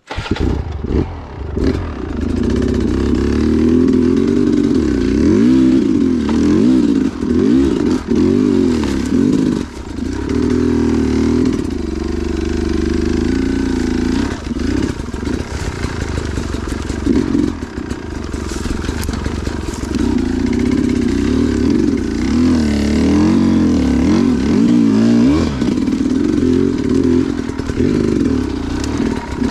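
Two-stroke dirt bike engine revving up and down again and again as the throttle is worked, with a few brief lulls.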